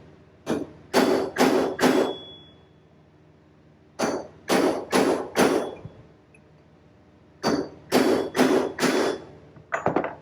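Hammer striking a steel punch to drive a bearing race out of a baler wheel hub: three sets of four sharp, ringing metal-on-metal blows, about two a second, with two lighter taps near the end. The race is being knocked loose a little at a time.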